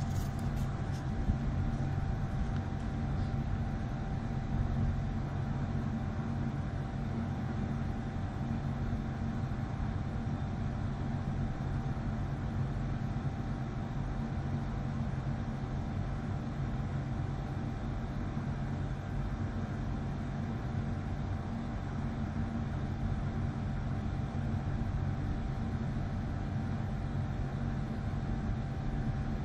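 Steady, unchanging low machine hum with a faint steady whine in it.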